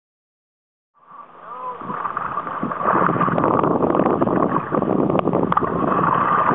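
Silent for about the first second, then water splashing and sloshing around a capsized sea kayak as the paddler rolls under it, with wind rumbling on the microphone.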